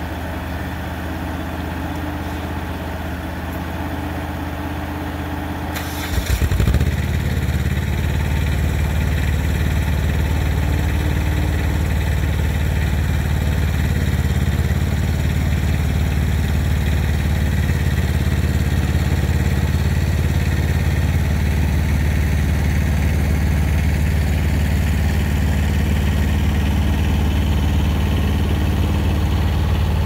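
Kubota compact tractor's diesel engine running steadily, with a short rattle about six seconds in, after which it runs louder and stays that way.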